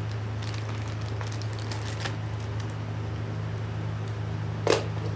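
Small plastic and metal parts of a gooseneck clamp mount being handled, with light scattered clicks and rattles and one sharper click near the end, over a steady low hum.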